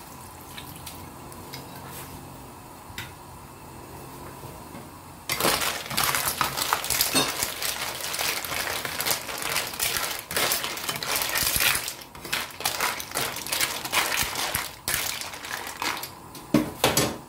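Clam shells clattering against each other and the pan as a spatula stirs them in simmering broth: a dense, rapid clatter that starts about five seconds in. Before that there is only the broth's quieter simmer.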